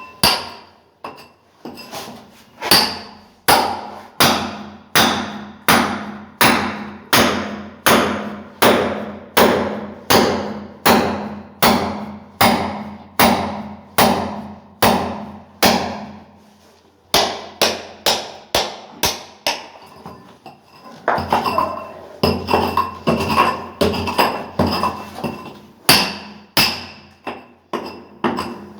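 Hand hammer striking a chisel to chip concrete, at a steady pace of about two blows a second, each blow with a short metallic ring. After a pause of a few seconds the blows resume faster and less evenly, mixed with scraping of broken concrete.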